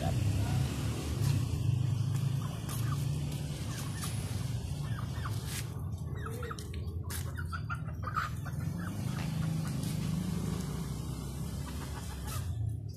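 Chickens clucking on and off, with a cluster of short calls in the middle, over a steady low hum.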